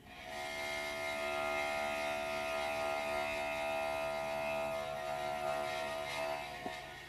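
A sustained drone of several held pitches at once, improvised music. It swells in over the first second, holds steady for about five seconds with a lower note joining about four seconds in, then fades out near the end.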